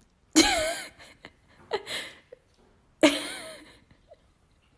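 Two short, wavering vocal cries about two and a half seconds apart, with a few faint taps between them.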